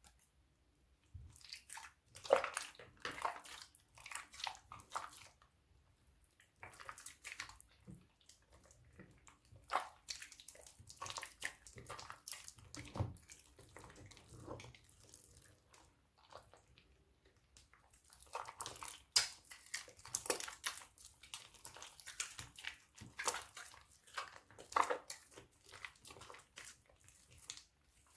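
Crunchy slime being squished and kneaded by hand, making wet crackling and popping sounds in irregular bursts with short pauses between them.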